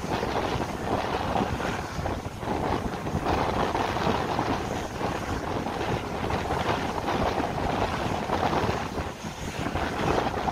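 ICF passenger coach running at speed: a steady rumble and clatter of wheels on the rails, with wind buffeting the microphone at the open window.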